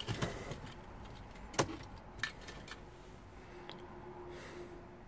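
Ignition key and its key ring jangling and clicking in a VW Crafter van's ignition switch as the key is turned to the on position, a few sharp clicks with one louder click about a second and a half in. A faint steady hum follows as the ignition comes on.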